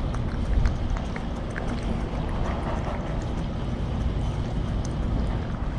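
A cat licking a Churu lickable treat from its pouch right at the microphone, small irregular wet clicks of the tongue, over a steady low rumble.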